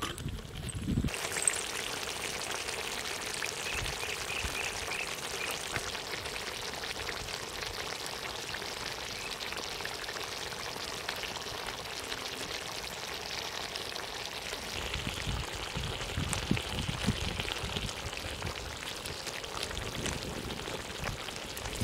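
Eel stew simmering in a wok over a wood fire: a steady hiss of bubbling and sizzling that starts abruptly about a second in, with a few low knocks in the second half.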